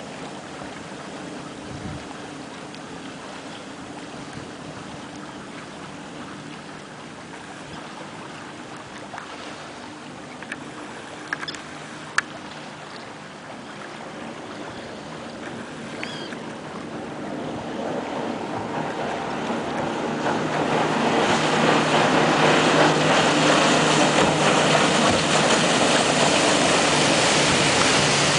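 Motorboat engine droning steadily under the hiss of water rushing past the hull. About two-thirds of the way through, the rush of water and spray grows much louder and stays loud.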